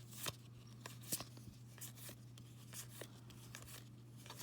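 Trading cards being handled and flipped through one by one: a few soft clicks and brushing sounds of card stock, over a low steady hum.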